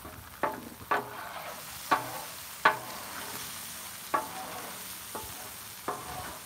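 Italian sausage patties, onions and bell peppers sizzling steadily on a Blackstone flat-top griddle, with about seven sharp metallic clinks and scrapes of a spatula against the steel cooktop as the food is pushed together.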